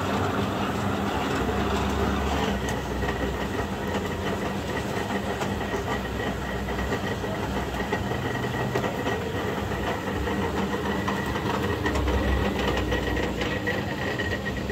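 Motor-driven sugarcane juicer running steadily, its rollers crushing cane stalks with a continuous mechanical rattle over a constant hum.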